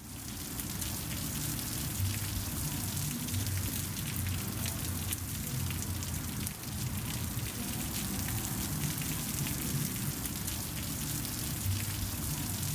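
Heavy rain falling steadily on wet pavement, a dense hiss with many fine drop patters.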